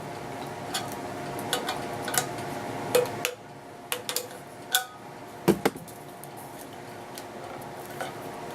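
Irregular metallic taps and clicks, a dozen or so with the loudest about three and five and a half seconds in: the ends of a wire coat-hanger handle being banged down against a tin can to bend them flat.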